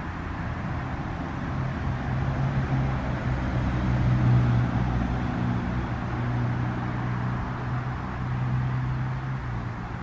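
Low, steady hum of a vehicle engine that grows louder about four seconds in and eases off near the end, over a steady background hiss.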